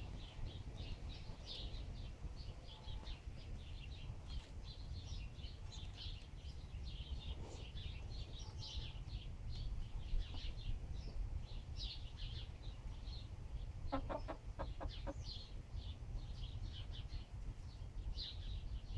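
Crickets chirping in many short, high-pitched bursts, scattered irregularly throughout. About fourteen seconds in, a hen gives a quick run of clucks, over a low rumble of wind on the microphone.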